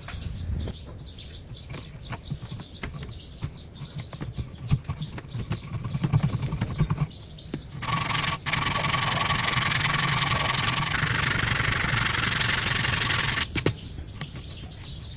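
Woodworking sounds: wood being rubbed and handled with scattered knocks, then about eight seconds in a power tool starts up and runs steadily for about five and a half seconds, a loud even noise with a faint whine, before stopping suddenly.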